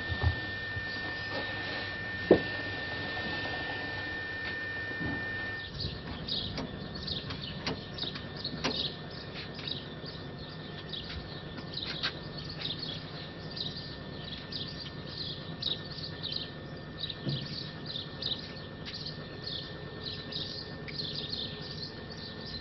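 A steady high-pitched whine with a couple of knocks, then, after an abrupt change about six seconds in, birds chirping busily: many short, quick chirps overlapping one another.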